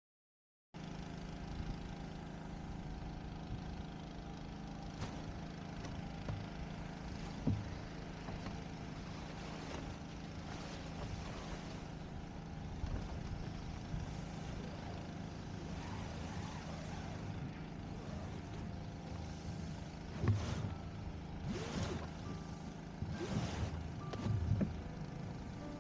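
Steady low outdoor rumble with a few short rustling clatters about twenty seconds in, from the spinnaker lines and rigging of a Hobie Tandem Island as the retrieve line is hauled by hand.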